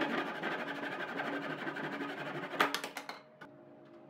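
Hand saw rasping through pine in quick strokes, then a few sharp knocks about two and a half seconds in, after which the sound drops away to a much quieter level.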